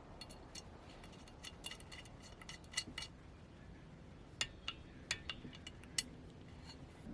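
Faint, irregular small metallic clicks and clinks with a slight ring, in two scattered clusters, like small metal tools or parts being handled.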